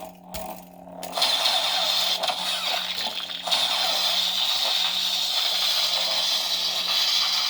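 Lightsaber hilt's sound board playing the 'Redeemed' Luke sound font: a deep, steady blade hum. After a couple of clicks, a loud steady hiss joins about a second in and holds.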